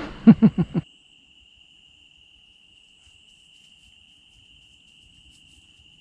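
Insects singing a steady, faint, high-pitched drone. In the first second it is covered by five quick, low sounds, each falling in pitch.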